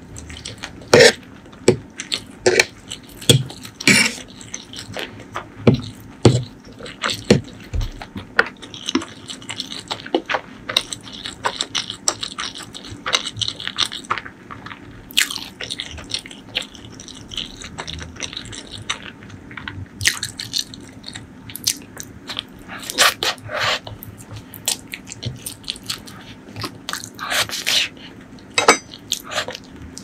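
Close-miked eating of spicy stir-fried instant noodles: wet chewing with many sharp mouth clicks at an irregular pace, and stretches of noodles being slurped in.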